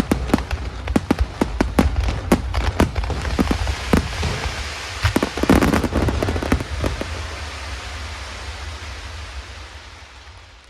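Fireworks going off in quick succession: many sharp bangs over a dense crackling, thickest a little past the middle, then dying away to a fading hiss near the end.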